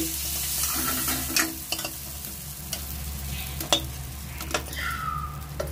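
Metal spatula scraping fried prawns out of a steel kadhai into a plate, with sharp scrapes and clicks of metal on metal. Under them is the sizzle of hot oil, which fades after the first second or so.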